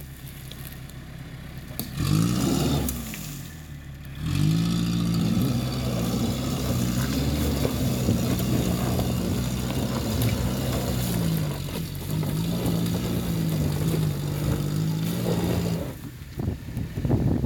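Toyota Hilux pickup's engine revving briefly, then pulling steadily under load as it climbs a dirt track, its pitch wavering up and down. The engine note drops away near the end, leaving a few sharp cracks and clatter.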